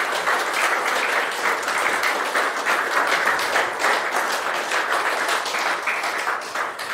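Audience applauding: a dense round of many hands clapping, fading out near the end.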